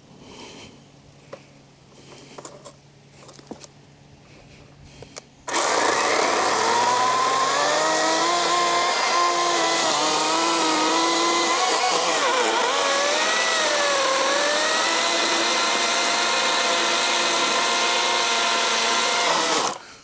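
Wild Badger 16-inch battery-powered chainsaw starting suddenly about five and a half seconds in and running with a loud electric-motor whine. The pitch climbs, then sags and wavers as the chain is loaded cutting through a log, before it stops abruptly near the end. Faint clicks are heard before it starts.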